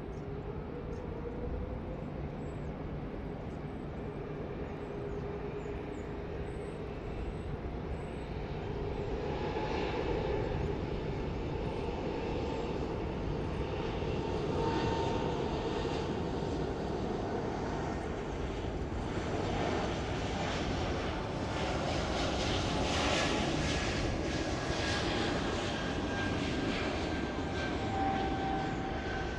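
Airbus A220's Pratt & Whitney PW1500G geared turbofans running during its takeoff roll: steady jet noise with thin whining tones, growing louder about eight to ten seconds in.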